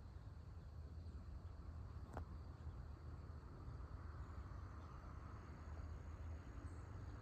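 Faint dawn ambience of crickets trilling steadily and thinly, high-pitched, over a low steady rumble, with one faint click about two seconds in.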